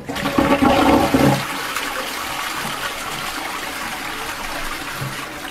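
Toilet flushing: a sudden loud rush of water for about the first second and a half, then a steadier rush of running water that eases slightly near the end.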